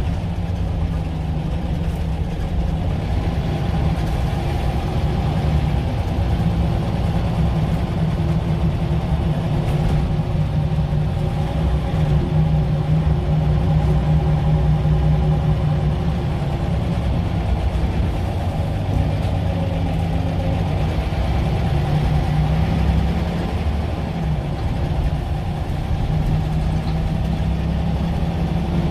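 Scania L94UB Wright Solar single-deck bus heard from inside the saloon: its five-cylinder diesel engine runs steadily under way, the engine note rising and falling a little as the bus speeds up and eases off.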